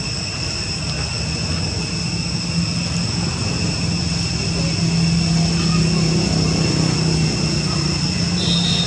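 A steady low engine-like drone that grows slightly louder, with constant high-pitched whining tones above it.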